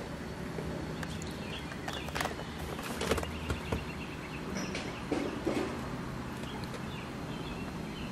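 Quiet background ambience: a steady low rumble with a few faint knocks, about two and three seconds in.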